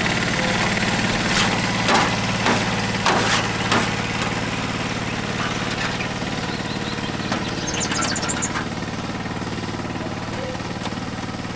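VST Shakti 130 DI power tiller's single-cylinder diesel engine running steadily at low throttle as it pulls its trailer off at walking pace. A few sharp knocks come in the first four seconds.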